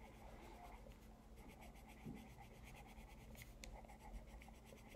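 Faint scratching of drawing strokes on notebook paper, many short strokes in quick succession, with a couple of sharper ticks about three and a half seconds in.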